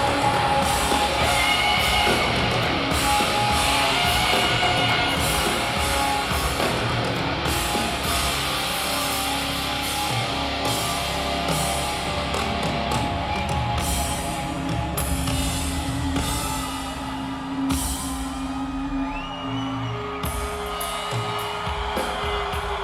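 A rock band playing live through a hall PA: electric guitar and drums, the music thinning a little in the second half.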